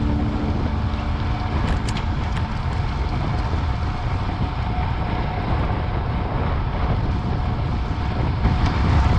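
Wind buffeting the microphone of a bike-mounted action camera while riding, giving a steady low rumble along with tyre and road noise on asphalt. The last notes of guitar music fade out in the first second or so.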